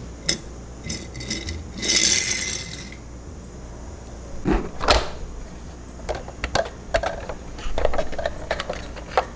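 Plastic toy car-carrier truck being handled: a scraping slide about two seconds in, then a run of light plastic clicks and knocks as its clear plastic trailer cover is lowered shut.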